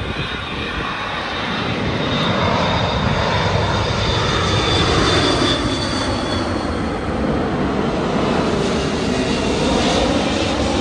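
Jet airliner on low final approach passing right overhead, its engines making a dense rushing roar that swells over the first two seconds and stays strong. A high whine runs above it and fades about six seconds in. Pitch bands sweep near the end as the plane goes by.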